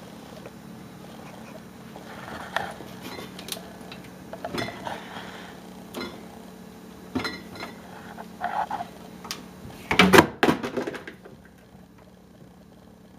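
Scattered knocks and short rustles over a steady low hum, with a louder cluster of knocks about ten seconds in; the hum stops soon after.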